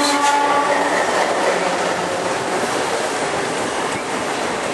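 Train running at speed, heard from aboard North British steam locomotive 191, a steady running noise with wheels clicking over the rail joints. A train horn sounds for about a second at the start.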